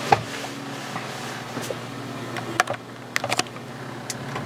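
Scattered sharp plastic clicks and taps from a handheld OBD scan tool being handled, with a close cluster of clicks a little past the middle, over a steady low hum.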